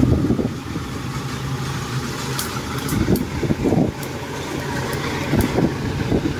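Kubota DC-105X tracked combine harvester's diesel engine running steadily as the machine crawls up a bank, with a few sharp clicks between about two and five seconds in.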